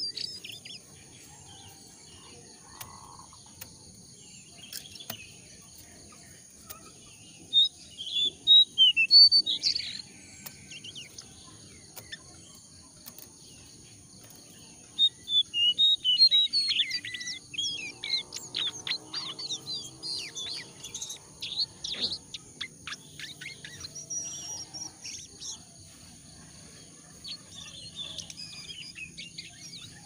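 A caged jongkangan songbird twittering in bursts of rough, fast chirps mixed with clearer notes: a burst about eight seconds in, a long dense run from about fifteen to twenty-one seconds, and a few more near the end. A steady high-pitched whine runs underneath.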